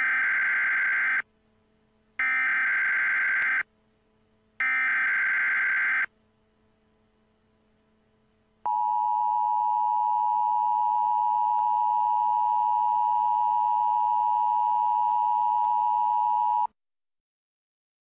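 Emergency Alert System SAME header: three identical bursts of warbling digital data tones, each about a second and a half long, then after a short pause the EAS attention signal, a steady two-tone alarm of 853 and 960 Hz held for about eight seconds before cutting off.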